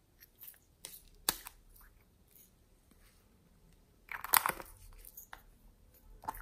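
Small plastic tomato-shaped containers being handled and twisted open, with a few sharp plastic clicks in the first second and a half, then a louder crackling snap a little past four seconds in as a lid comes off.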